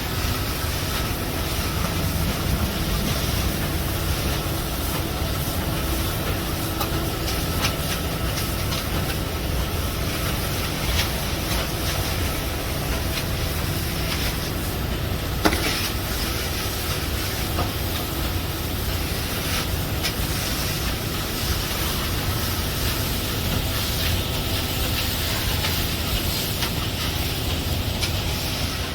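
Engine of concrete-pouring machinery running steadily with a constant hiss and low hum, and a single sharp knock about halfway through.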